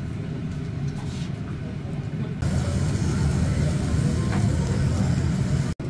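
Restaurant room noise: a steady low hum with faint background chatter, joined about two and a half seconds in by an even hiss. The sound cuts out for an instant near the end.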